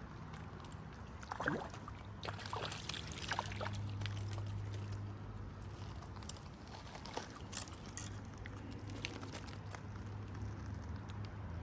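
Shallow creek water trickling and sloshing, with scattered small clicks and knocks.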